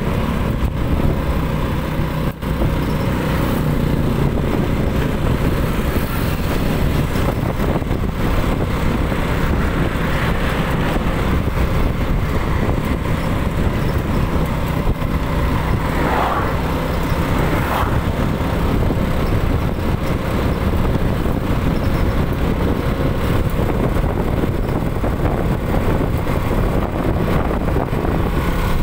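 Motor scooter engine running steadily at cruising speed, with loud road and wind noise on the microphone.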